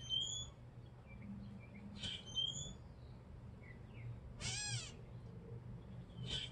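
Gray catbird calling: short harsh notes, each followed by a thin whistle, near the start, about two seconds in and near the end, and midway one longer nasal, cat-like mew that rises and falls. A steady low hum runs underneath.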